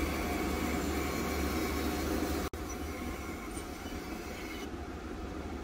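Harvey C14 bandsaw running without load, a steady motor hum and blade whir, as a wood blank is lined up against the fence before the cut. The sound drops out for an instant about two and a half seconds in.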